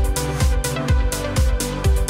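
Electronic dance music with a steady kick drum about two beats a second, hi-hat strokes between the beats, and a sustained synth line.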